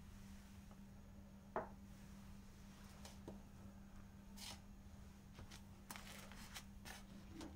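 Faint scraping of a table knife spreading butter on slices of bread, in a series of short strokes, with one light clink of the knife on a plate about one and a half seconds in. A faint steady hum lies underneath.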